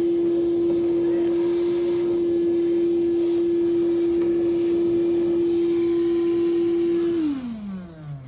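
Septic pump truck's vacuum pump running with a steady whine, then shut off about seven seconds in, its pitch falling as it spins down.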